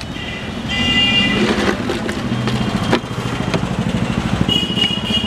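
A motor vehicle engine runs close by with a steady rapid low pulse. A high thin steady tone comes in briefly about a second in and again near the end, with a few light clicks.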